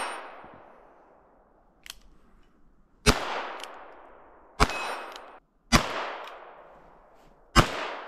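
.22 handgun fired four times, the shots a second or two apart, each followed by a long fading echo.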